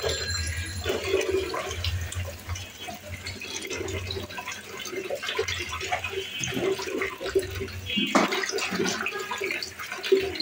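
Sliced onions sizzling in hot oil in a non-stick kadai, a steady crackling fry.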